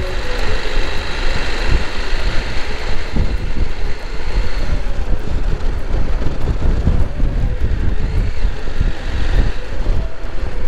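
Wind buffeting the microphone over the running engine of a CFMoto 800 parallel-twin motorcycle on the move, a steady loud rumble.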